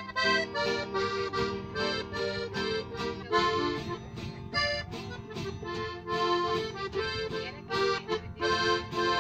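Piano accordion playing an instrumental melody in quick, changing notes, with an acoustic guitar strumming along underneath.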